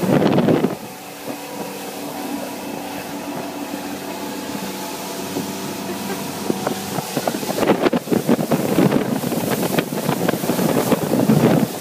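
Motorboat engine running steadily at speed, a constant hum, with wind buffeting the microphone at the start and again from about two-thirds of the way through, where it drowns the engine.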